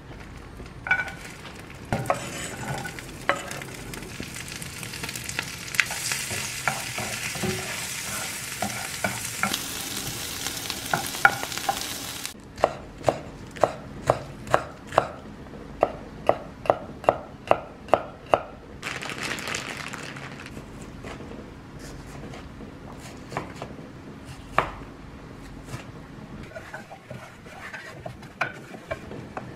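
Butter sizzling in a frying pan for about eleven seconds, with scattered light clicks, stopping abruptly. Then a chef's knife chopping green onion on a wooden cutting board: about thirteen sharp, evenly spaced knocks at two to three a second.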